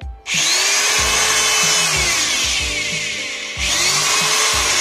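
Khadija SE-01 350 W corded electric drill running up to speed and drilling into a wooden board for about two and a half seconds, dropping off, then starting up again near the end. The drill runs smoothly under the load.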